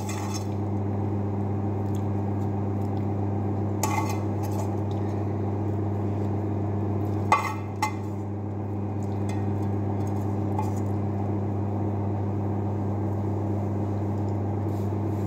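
Steady low electrical hum of running kitchen equipment, with a few short clinks and scrapes of a ladle, frying pan and spatula against a glass baking dish, the sharpest about seven seconds in.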